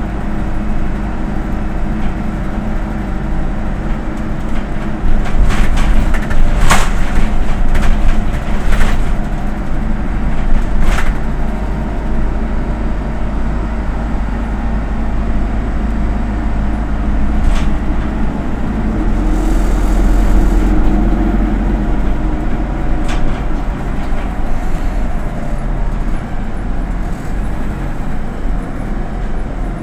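Autosan Sancity M09LE city bus under way, heard from inside the cabin: a steady engine hum and road rumble, with a handful of sharp knocks and rattles from the body. The rumble swells for a couple of seconds about two-thirds of the way through.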